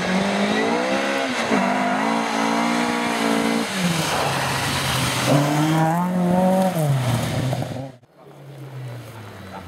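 Rally car's engine revving hard as it comes down a gravel stage towards the spectators, its pitch dropping and climbing again several times as the driver shifts and lifts. The sound cuts out abruptly about eight seconds in.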